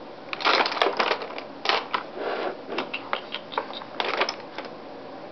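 Rummaging through makeup to find a lip gloss: an irregular run of light clicks and rattles, heaviest in short clusters about half a second in, around two seconds and around four seconds.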